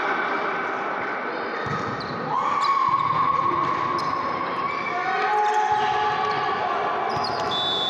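Volleyball rally in an echoing sports hall: several sharp hits on the ball, with players and spectators shouting.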